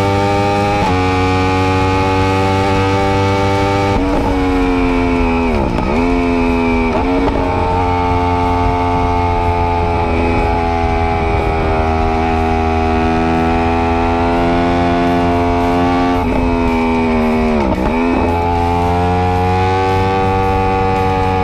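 Yamaha R1M's crossplane inline-four engine held high in the revs at a steady pitch. Twice, about six and eighteen seconds in, the pitch dips sharply and climbs straight back.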